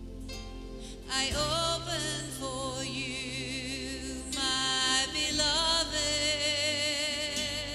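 Slow worship music: a voice singing long held notes with vibrato, coming in about a second in, over steady low sustained instrumental notes.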